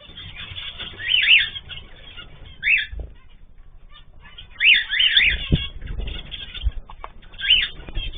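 Cage birds calling: clusters of short, sharp chirps every couple of seconds, with a few low thuds in between.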